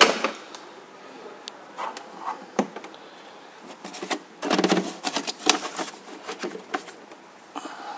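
Clicks and knocks of a motorcycle's hard plastic saddlebag being opened and handled, its lid and latch clattering, with a cluster of louder knocks about halfway through.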